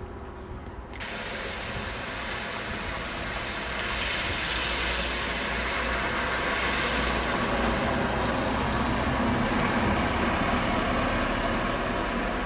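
Cars driving along a wet, flooded road: a steady hiss of tyres through water over low engine rumble. It comes in abruptly about a second in and grows louder over the next few seconds.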